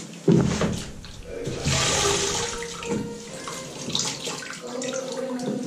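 Grout sponge float being dunked and rinsed in a grout-washing bucket of water and pushed against its wringer grid: water sloshing and splashing. There is a sudden heavy splash just after the start and another long splash about two seconds in.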